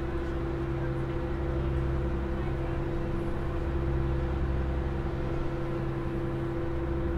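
Open car ferry's diesel engines running steadily while under way: an unbroken low drone with a few fixed hum tones.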